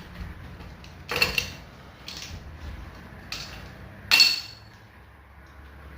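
Metal tools or parts clinking against each other twice, about three seconds apart, each a sharp hit with a short ring, with a couple of lighter knocks in between.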